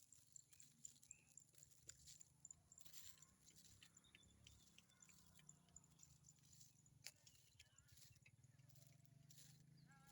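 Near silence: faint background with a low hum and scattered small ticks.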